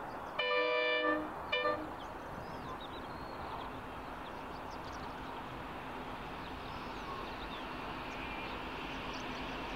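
Distant NR class diesel locomotive's horn sounding two blasts, a chord of several tones: one of under a second, then a short toot. Then the steady rumble of the approaching diesel locomotives slowly grows louder, with faint bird chirps.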